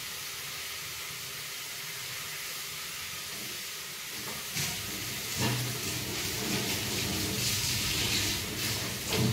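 Masala frying in a steel pot on a gas stove: a steady sizzling hiss that grows louder over the second half, with a few brief knocks.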